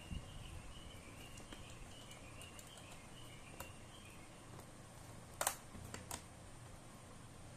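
Faint background noise with a few light clicks and taps, the loudest a quick pair of clicks about five and a half seconds in. Faint high chirping runs through the first few seconds.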